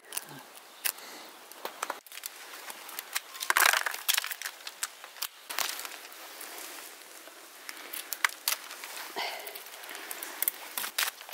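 Rose-hip bush branches rustling and small twigs and stems crackling and snapping as rose hips are picked by hand: an irregular run of small clicks and crackles, with a louder rustle about three and a half seconds in.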